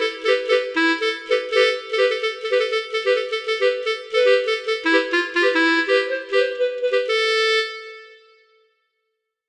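Multi-tone 'telolet' bus air horn playing a fast tune of short notes, several pitches sounding together. Near the end it holds one chord, which fades away to silence.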